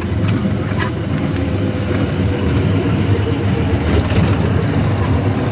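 Train running with a steady low rumble and a few faint clicks.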